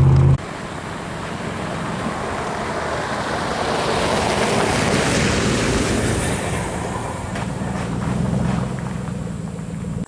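Pickup truck driving past on a gravel road: tyre noise on the gravel and the engine build to their loudest about five seconds in, then fade as it goes by.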